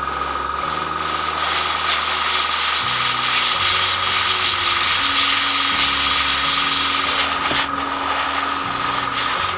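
Airbrush hissing steadily as compressed air sprays paint, building up about a second and a half in and heaviest through the middle, so much that the paint runs.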